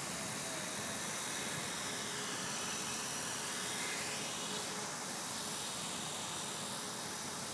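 E-flite Blade 450 electric RC helicopter hovering: a steady whine from its electric motor and rotor over a hiss, the pitch drifting gently up and down as it holds a low hover.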